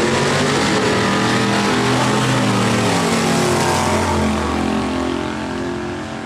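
Two Chevrolet S-10 drag-racing trucks running at full throttle down the strip, their engines loud with pitch rising and falling. The sound fades as they pull away after about four seconds.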